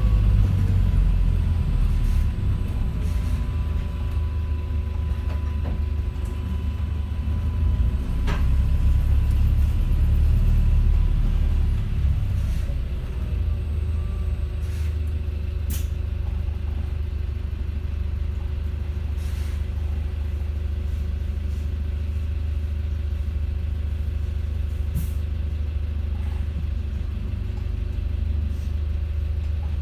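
Volvo B5LH hybrid double-decker bus on the move, heard inside from the upper deck: a steady deep drivetrain rumble with faint whines that rise and fall, and the odd sharp click or rattle. It grows louder for a few seconds about a third of the way in, then settles.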